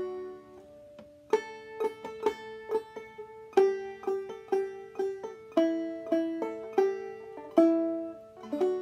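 Five-string banjo played clawhammer style in Double D tuning, demonstrating a phrase of a fiddle tune: one note rings and fades, then about a second in a steady rhythm of plucked notes and brushed strums begins.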